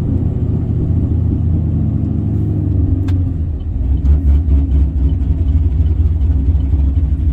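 A 2011 Camaro SS's LS3 V8 with a large, high-overlap camshaft, heard from inside the cabin as the car slows and the revs fall from about 1,800 rpm to idle. There is a sharp click about three seconds in. After that the engine settles into an uneven, pulsing idle near 950 rpm, the lope of the big cam.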